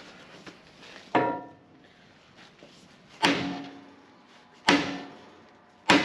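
Four heavy hammer blows on steel, each ringing briefly, a second or so apart: a chilled bushing being driven into its bore on a loader quick coupler.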